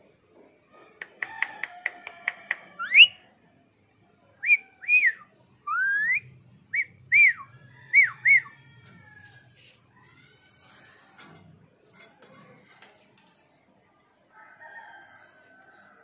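Ringneck parrot calling: a quick run of about eight clicking chirps, then a rising whistle, then a string of short arched and rising whistle notes. After about eight and a half seconds only faint chatter remains.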